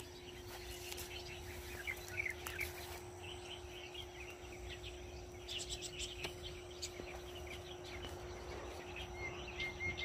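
Faint scrubland ambience: small birds giving scattered short chirps and brief trills, with a steady insect buzz beneath.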